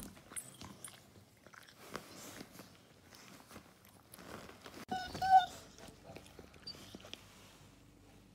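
Black Labrador licking a person up close: a run of wet tongue and mouth sounds. A light metallic clink near the start, and a short high-pitched squeak about five seconds in, the loudest moment.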